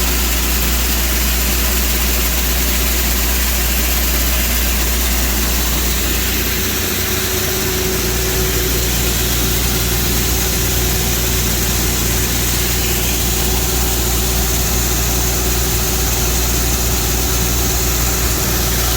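Tractor engine running at a steady speed, a constant low hum under a steady hiss of machinery, while corn is unloaded from the center of a grain bin. The low hum shifts slightly about a third of the way through.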